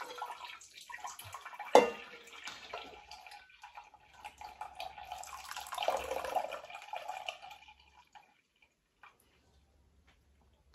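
Simmered red currants and their juice poured into a muslin jelly bag on a jam-strainer stand, splashing and dripping through into a glass bowl. There is a sharp clink about two seconds in, and the pouring stops about eight seconds in.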